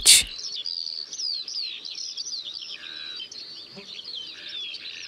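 Small songbirds twittering in the background: a continuous run of quick, high, falling chirps.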